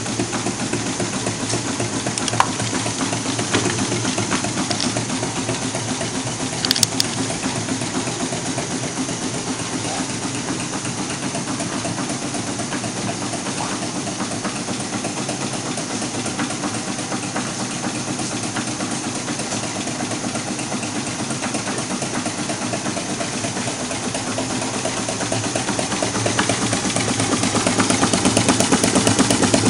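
Two-cylinder Stirling engine running, its pistons and linkages making a fast, steady, sewing-machine-like clatter as it speeds up past about 220 rpm. The sound grows louder over the last few seconds.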